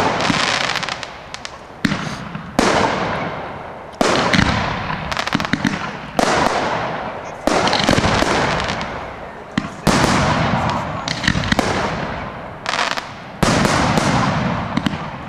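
Fireworks display: aerial shells bursting one after another, about eight sharp bangs one every one to two seconds, each followed by a fading crackle.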